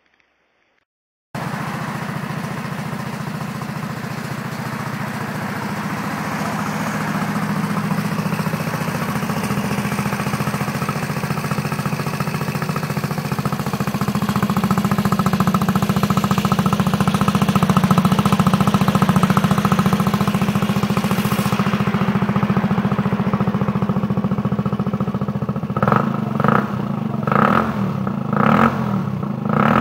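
Gilera Nexus 125 scooter's single-cylinder four-stroke engine running through an aftermarket exhaust, starting about a second in and running steadily at idle. Near the end the throttle is blipped about six times in quick succession, each a short rev that rises and falls.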